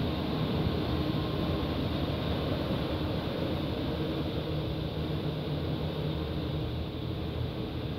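Three-layer co-extrusion blown film line running: a steady mechanical drone with a hiss, with a few faint steady hums under it.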